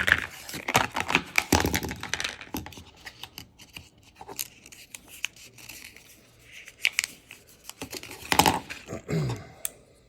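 A knife's retail packaging being torn and opened by hand: an irregular run of tearing, crinkling, cracking and scraping, busiest in the first couple of seconds and again near the end.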